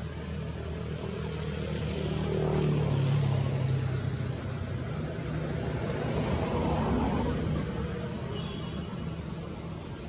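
Engine noise of passing motor traffic: a steady low hum that swells louder about three seconds in and again around six to seven seconds, then eases off.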